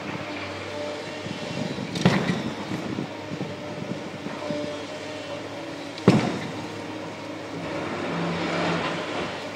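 Diesel engines and hydraulics of tracked demolition excavators running steadily, with two sharp bangs about four seconds apart as concrete is broken. The machine noise swells near the end.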